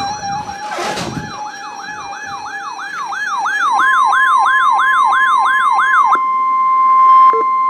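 A warbling, siren-like alert sweeping up and down about three and a half times a second and growing louder, cutting off about six seconds in. Under it, from about four seconds in, the steady single-pitch warning alarm tone of NOAA Weather Radio sounds and carries on after the warble stops. Together they announce the severe thunderstorm warning that follows.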